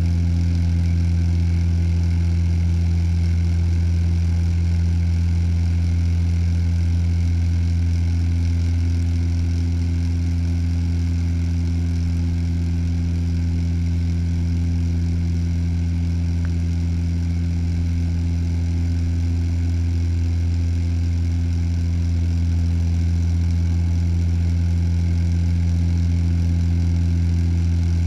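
Turboprop airliner's propellers and engines droning steadily, heard inside the cabin: a deep constant hum with a few steady overtones over a wash of air noise.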